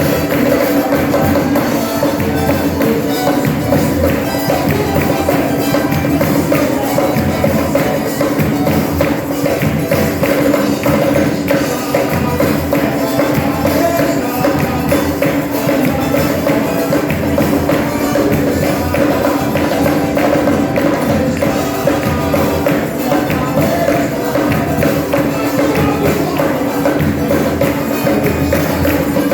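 Live church band playing a lively Pentecostal worship chorus, with a tambourine shaken and struck in a fast, steady rhythm throughout.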